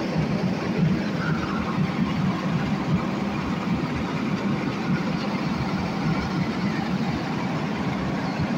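A heavy vehicle's engine running steadily, a constant low rumble with no change in speed.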